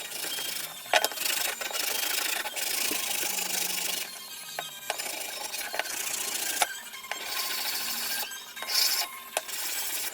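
Small hand plane cutting wood in a series of scraping strokes, each about a second long with short pauses between, over background music.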